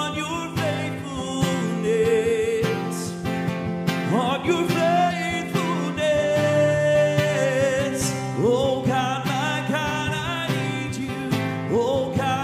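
A man singing a slow worship song, accompanying himself on a steadily strummed acoustic guitar.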